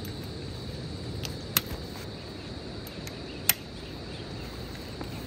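Steady high-pitched drone of insects, broken by a few sharp knocks; the loudest two come about two seconds apart.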